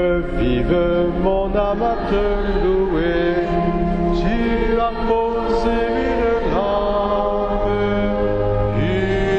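Hymn music in French: voices singing long held notes over sustained chords, the notes changing every second or so with occasional sliding pitches.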